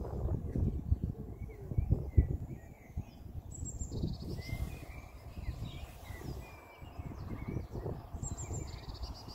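Small birds chirping and trilling, with wind rumbling on the microphone in gusts, strongest in the first three seconds.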